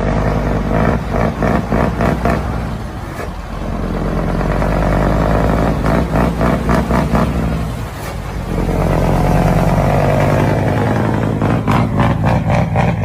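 A vehicle's engine revved loudly through its exhaust, the 'ronco' (rumble) shown off. Bursts of quick throttle blips, about four a second, alternate with longer held revs, twice dropping back briefly in between.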